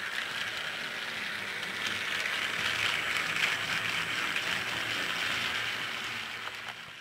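Battery-powered TrackMaster Duchess toy engine running on plastic track: a steady motor whir with its wheels rattling over the rail joints, swelling midway and fading near the end as it rolls away.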